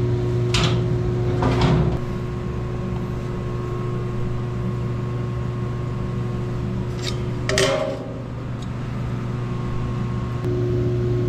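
Steady hum of a shop heater running, with a few short metallic clunks about half a second in, about a second and a half in and near the eighth second as the welded steel cabinet is moved about on its new casters.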